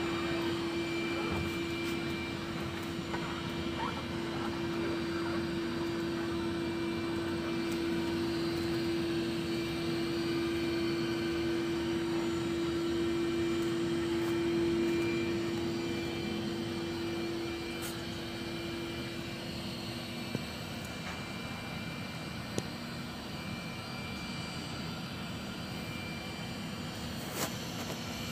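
Window-cleaning robot's suction fan running with a steady whine over a whooshing hum while the robot holds itself to the glass. The hum eases a little past halfway, and a few faint ticks come near the end.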